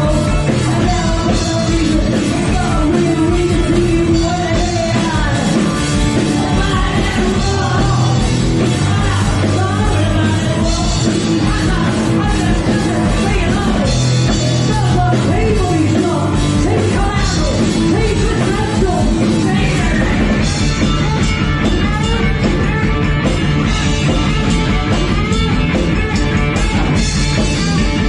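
Punk rock band playing live at a steady loud level, with shouted singing over the music.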